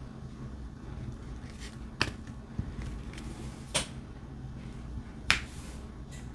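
Diamond painting drill pen tapping small resin drills onto the canvas and tray: three sharp clicks, the first about two seconds in and then roughly every one and a half seconds, with a few fainter taps, over a steady low hum.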